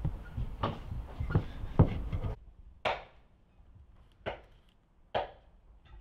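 Wooden rolling pin working dough on a wooden board, with several dull knocks of wood on wood. After a sudden drop in background noise, three separate sharp taps as the pastries are set on a baking tray.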